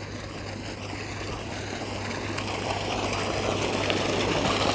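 Irrigation pump running with a steady low hum, and water gushing from its outlet pipe into a channel; the rush of water grows steadily louder.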